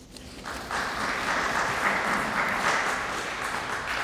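Audience applauding: a dense patter of clapping that builds within the first second and tapers off near the end.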